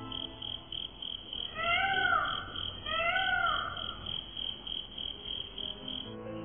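Night-ambience sound effect: crickets chirping steadily at about four chirps a second, with two drawn-out peacock calls that rise and then fall in pitch, one after the other, about two and three seconds in.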